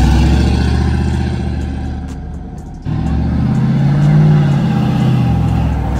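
Cammed 5.3 V8 of a Chevy Silverado single cab with a TBSS intake manifold, driving past and pulling away, its exhaust note fading. About three seconds in it cuts abruptly to another pass, where the engine note builds again as the truck comes closer.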